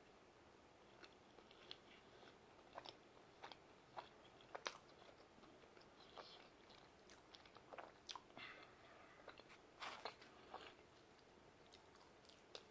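Faint, irregular clicks and smacks of a man chewing a mouthful of pizza.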